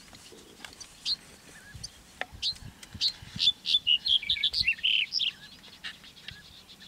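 Male black-headed bunting singing: a few separate high notes, then from about three seconds in a quick run of high notes lasting about two seconds, the song phrase.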